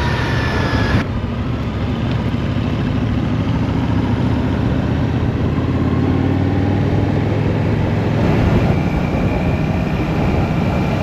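Royal Enfield Shotgun 650's parallel-twin engine running while the motorcycle is ridden, with wind noise over it; the engine note rises in pitch in the middle as the bike accelerates.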